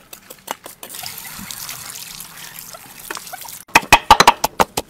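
Water trickling and splashing, then, near the end, a pestle pounding a wet green paste in a mortar in quick, loud strikes.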